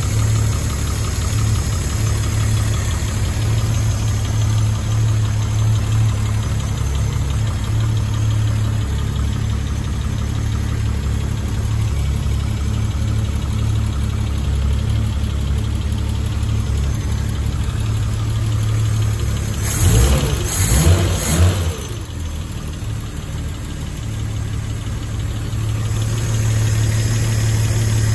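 1967 Triumph Vitesse 2-litre straight-six running steadily at idle, freshly rebuilt, on refurbished carburettors that are not yet tuned or balanced. About twenty seconds in, a brief louder burst of uneven sound breaks in for a second or so.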